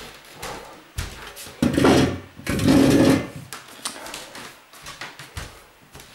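Handling noise from boxes and crates: scattered knocks and clicks, with two louder scraping, rustling stretches in the middle.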